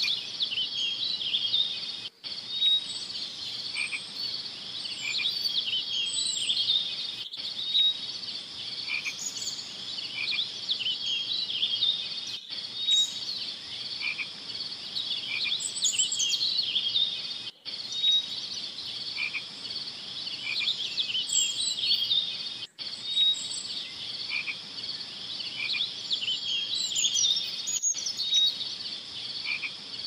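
Night chorus of small frogs: many rapid chirping calls overlapping in a steady high-pitched din, with scattered higher chirps above it. The recording is a short loop that repeats about every five seconds, with a brief gap at each repeat.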